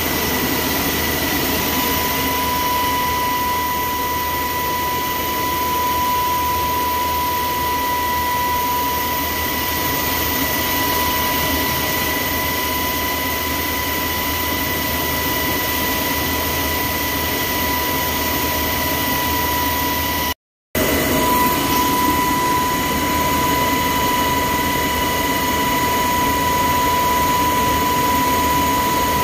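Cabin noise of a military helicopter in flight: steady engine and rotor noise with a high, even whine running through it. The sound cuts out for a split second about twenty seconds in, then resumes unchanged.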